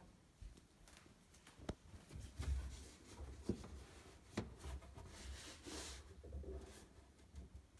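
Scattered light knocks, clicks and scraping from hands and tools working an undermount kitchen sink loose from its fastenings, with a few sharper knocks and a longer scrape about six seconds in.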